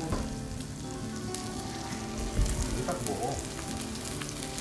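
Oil sizzling steadily in a frying pan as battered jeon fry, with a brief vocal sound about three seconds in.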